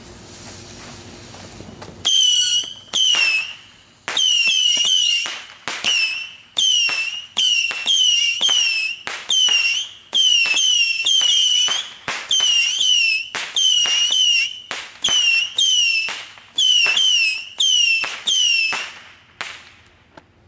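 A 25-shot Saturn missile battery firing its small whistling rockets in quick succession, starting about two seconds in and stopping near the end. Each shot is a sharp pop followed by a short high whistle that dips and rises in pitch, often overlapping the next.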